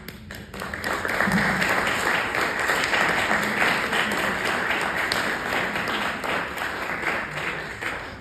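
Audience applauding. It builds about half a second in, holds steady, and fades out near the end.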